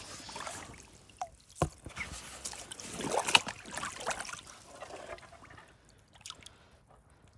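Water splashing and trickling in a landing net held in the margin as a catfish is released from it, loudest about three seconds in. A single sharp knock comes about one and a half seconds in.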